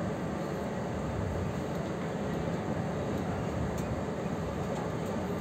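Steady rumble of a Chu-Kuang Express passenger train running, with a few faint clicks over it.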